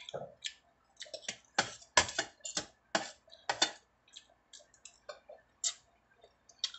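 A metal spoon and fork clinking and scraping against a stainless steel bowl while scooping rice: a string of short, irregular clicks.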